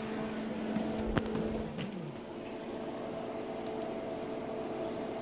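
Electric fan running with a steady hum and whir, turned on to clear the strong cinnamon-oil fumes. A single light knock sounds about a second in.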